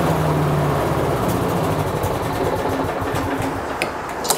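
Briggs & Stratton engine on a walk-behind lawnmower running slow and steady just after a pull start. This is the mower's starts-then-dies fault, later traced to a missing governor spring.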